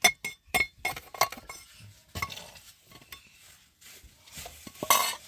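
Hard objects clinking together: a quick run of sharp, ringing clinks in the first second and a half, then a louder clatter near the end.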